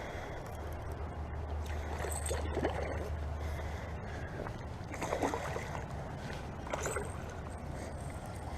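A hooked largemouth bass splashing at the water's surface in three short bursts, about two, five and seven seconds in, as it is played toward the bank.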